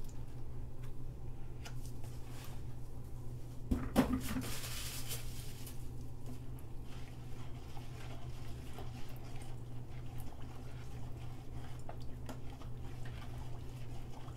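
A plastic bucket set down on a table with a knock about four seconds in, followed by a couple of seconds of rustling and scraping. Soap batter being stirred in a plastic bowl makes faint scrapes and ticks over a steady low hum.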